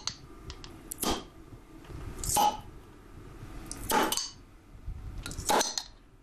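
Glass beer bottles clinking as they are handled, with four louder sharp clinks about a second and a half apart and a few faint ticks between them.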